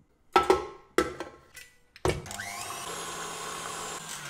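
A few sharp knocks, then about two seconds in a KitchenAid tilt-head stand mixer switches on. Its motor whine rises briefly as it spins up, then runs steadily as the wire whisk whips eggs with sugar.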